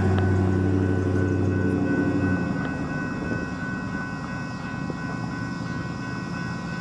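Railroad crossing warning bell ringing in a fast, even repeat as the crossing gate arm lowers. Under it a loud low steady hum stops about two and a half seconds in.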